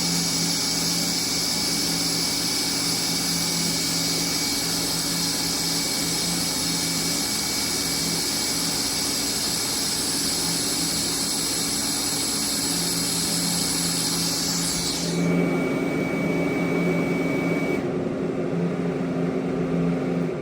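TIG welding arc on a V-band flange at about 130 amps, a steady high buzzing hiss over a low hum, that cuts off abruptly about 15 seconds in. A lower hiss and hum carry on after it.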